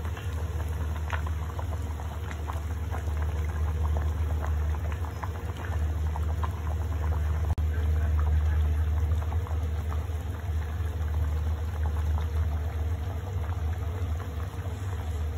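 Fish head curry boiling in a pot on the stove: a steady stream of small bubbling pops and blips over a low steady hum.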